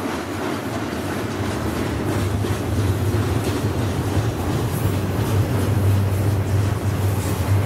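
Freight train rolling past at speed: a steady rumble of wheels on rail with a low hum, growing gradually louder.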